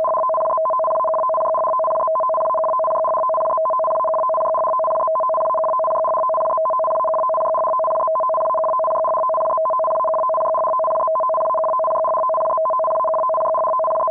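Japanese Emergency Warning Broadcast System start signal: a loud, steady electronic data tone chattering rapidly between two pitches, which announces an emergency broadcast, here a tsunami warning.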